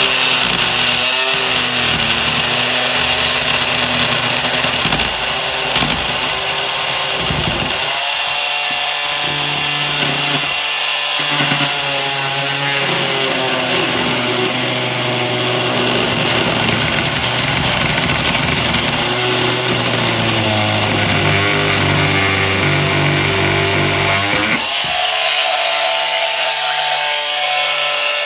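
Oscillating multi-tool sawing an opening in plastic trunking, its buzzing changing in pitch as the blade works the cut, then steadier about 24 s in. The piece is mounted and cannot be taken apart, so it vibrates heavily under the blade.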